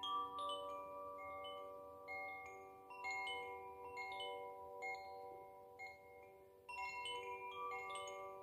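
Koshi Ignis wind chime played by hand, its clapper striking the rods tuned to G, B, D and A in irregular clusters. The clear bell-like notes ring on and overlap into chords.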